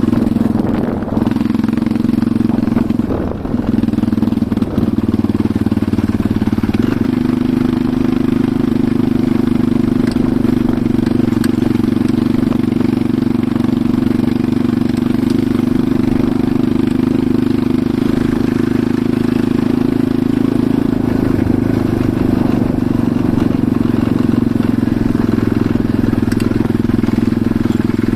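Enduro motorcycle engine running, its pitch wavering and dipping briefly in the first few seconds, then holding steady.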